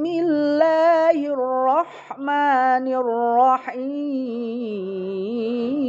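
A voice chanting Arabic in melodic Qur'anic tartil recitation, holding long notes that step up and down in pitch with short pauses between phrases.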